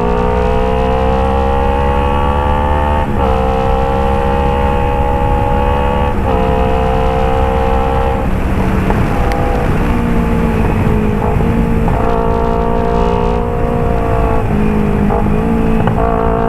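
Kawasaki Ninja 250 FI's parallel-twin engine through a Phoenix aftermarket exhaust, the pitch climbing under throttle and dropping at gear changes about 3 and 6 seconds in, turning rough and uneven about 8 seconds in before settling to a steady note. A crackly, worn microphone roughens the recording.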